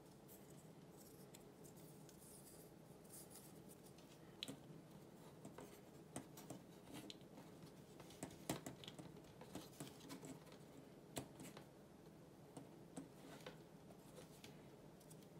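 Thin wooden model-kit parts clicking and tapping as they are pressed and slotted together by hand, with light scraping of wood on wood. The clicks are quiet and scattered, starting about four seconds in, with one sharper click near the middle, over a faint steady hum.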